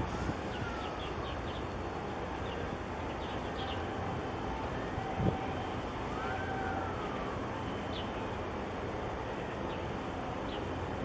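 Steady wind and harbour noise outdoors as a container ship passes, with a faint distant tone that rises then falls, twice, and a scattering of short high chirps.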